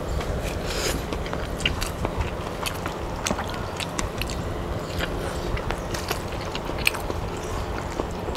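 Close-up chewing and mouth noises of someone eating stir-fried mala noodles, with many small wet clicks and smacks scattered irregularly over a steady low hum.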